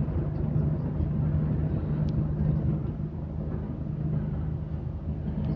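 Steady rumble of a moving vehicle heard from inside, with a constant low hum, carried by coarse 8-bit audio.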